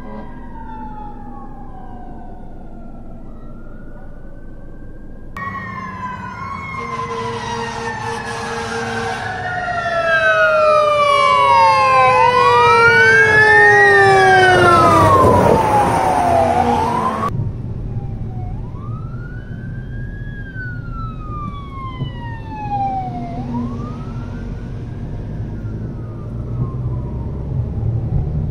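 Fire truck sirens wailing, rising and falling in pitch, in three cut-together stretches. In the middle stretch several sirens sound at once, some sweeping quickly up and down, and this is the loudest part. Near the end a single wail rises and falls every few seconds.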